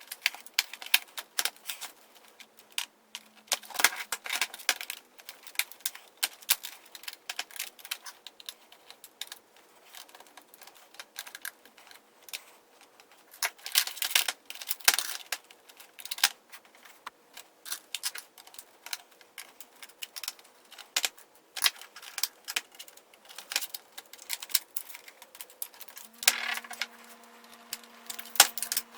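Irregular small clicks, ticks and clatters of a laptop being taken apart: small screws being turned out and plastic and metal parts being handled and set down. A faint steady hum starts near the end.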